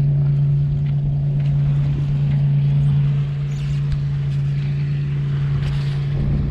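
A sailboat under way, with water washing along the hull and a loud, steady low hum that runs without a break.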